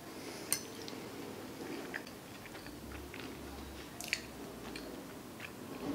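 A person chewing a mouthful of soft, cheesy baked macaroni and cheese with the mouth closed, with wet mouth clicks scattered through, the sharpest about half a second in and about four seconds in.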